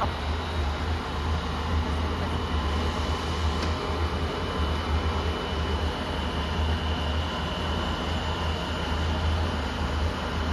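Steady machinery hum with fan-like noise and a thin, steady high whine, from the melting-furnace equipment running under test.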